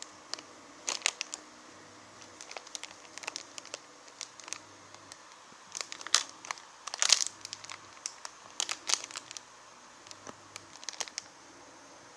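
Plastic candy packets crinkling as they are handled, in irregular crackly rustles that are busiest in the middle.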